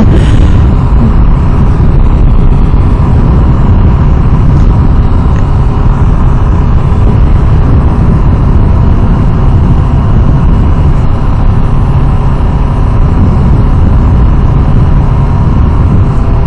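Kawasaki Ninja sport motorcycle cruising at a steady speed, its engine note held even under a loud rush of wind on the camera microphone.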